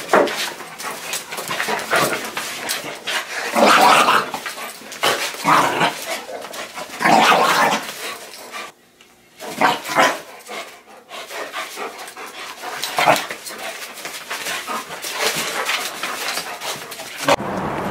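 A small dog playing with a toy on a concrete floor, making irregular bursts of dog sounds a second or more apart.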